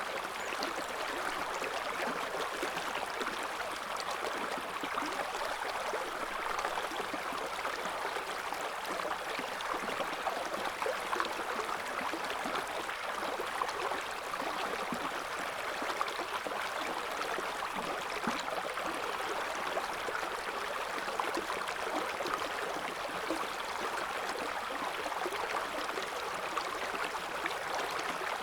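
A clear river's current flowing, a steady rushing and babbling of water with small splashes and gurgles throughout.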